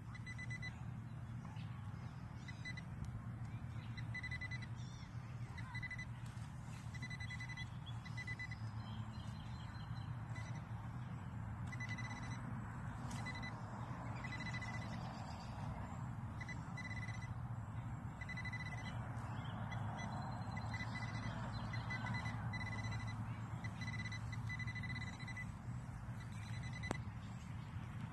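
Handheld metal-detecting pinpointer beeping in short, high-pitched pulses as it is probed through a dug plug of soil, the beeps coming in quicker runs at times: the sign of metal close to its tip. A low steady hum runs underneath.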